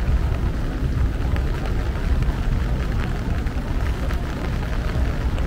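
Street noise in heavy rain: a steady low rumble with the hiss of rain and tyres on wet pavement.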